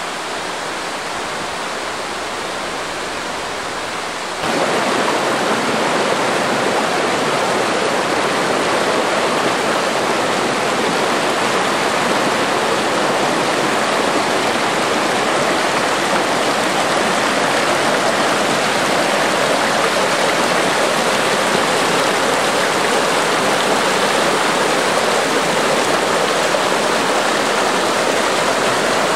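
Storm runoff water rushing steadily down a washout stream after heavy rain. It gets louder about four and a half seconds in, then holds steady.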